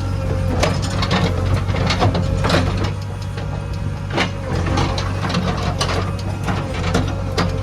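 JCB 3DX backhoe loader's diesel engine running steadily under work, with repeated irregular metallic knocks and clanks from the bucket and linkage as it loads mud.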